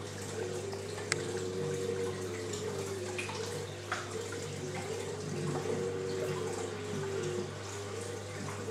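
Reef aquarium's circulating water trickling and splashing steadily over a constant low hum, with a sharp click about a second in.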